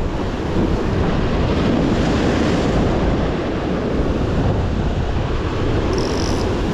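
Ocean surf breaking and washing over the rocks of a jetty, with strong wind buffeting the microphone.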